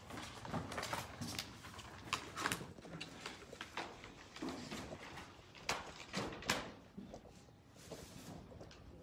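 Irregular rustling and swishing of paper: large paper envelopes and stacks of magazines being handled and slid into envelopes, with a few louder swishes just before and after six seconds in.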